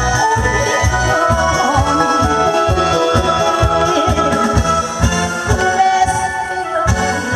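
Korean trot song playing loud, with a steady, even beat and a sustained melody line over it.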